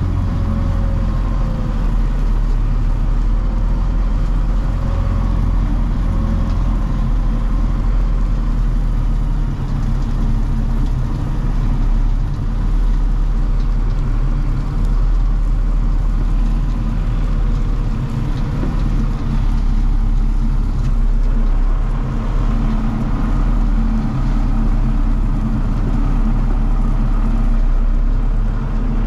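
Engine of a 1985 dump truck running steadily under light load as the truck creeps forward in gear, its bed raised and tailgate open, spreading asphalt millings.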